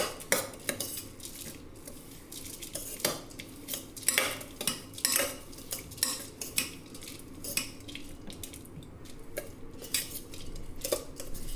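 Metal spoon briskly stirring and tossing bhel puri in a stainless-steel bowl: irregular clinks and scrapes of spoon against steel over the rustle of puffed rice, sev and farsan being turned in chutney.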